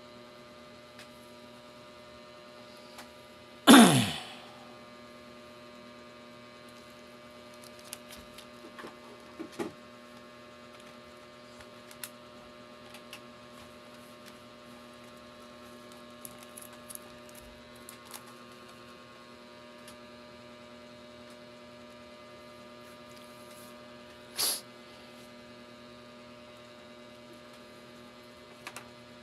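Steady electrical hum with scattered faint clicks and taps of handling. About four seconds in, a loud sound sweeps quickly down in pitch, and a short sharp knock comes near the end.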